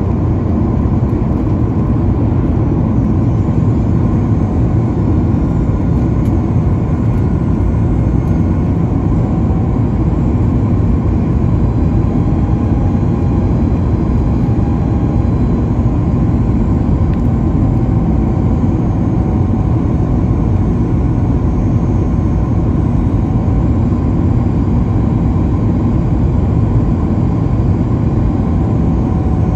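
Steady in-cabin noise of a Boeing 737 MAX 9 on approach, heard from a window seat beside the wing: a deep, even rush of airflow and CFM LEAP-1B turbofan noise, with faint thin whining tones above it.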